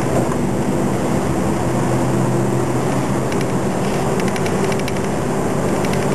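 City bus diesel engine running steadily while the bus drives along, heard from inside the cabin, with spells of light, fast ticking.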